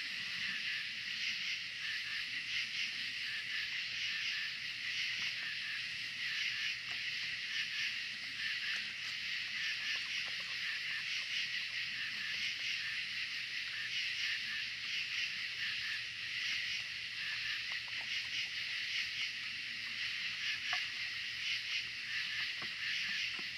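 Steady chorus of night insects, a dense high shrilling that pulses rapidly and never lets up, with a few faint ticks now and then.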